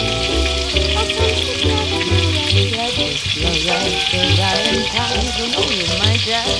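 Background music with a repeating bass pulse, over a steady crackling sizzle of food frying in a pan on a small wood stove.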